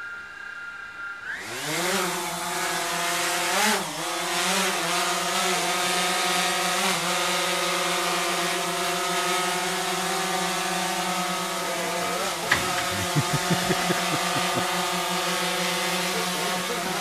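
DJI Phantom 3 Pro quadcopter's four motors and propellers spinning up from idle about a second in, rising in pitch as it lifts off. Then a steady buzzing hum while it hovers, its pitch wobbling briefly a few times as the motors correct. A single sharp click comes about twelve seconds in.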